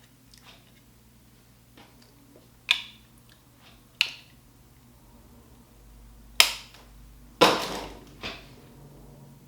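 Five sharp knocks or bangs in a small room, spaced one to two seconds apart. The loudest two come about two-thirds of the way through, and the second of those trails off in a short clatter.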